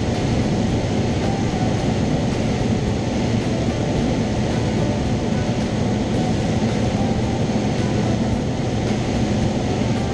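Cessna 172's engine and propeller droning steadily in cruise flight, heard inside the cockpit.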